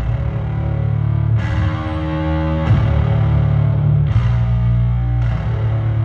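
Live hard-rock band playing a slow, heavy riff on distorted electric guitar and bass, with loud accents about every second and a half, heard from the stands of an arena.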